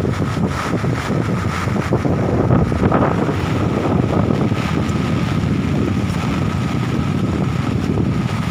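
Steady rush of floodwater pouring through the opened gates of a rain-filled dam, with wind buffeting the microphone.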